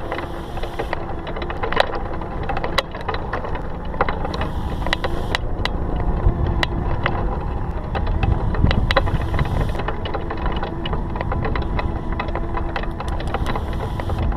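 A small motor running steadily with continuous rattling and sharp clicks, over a low rumble that grows stronger in the middle.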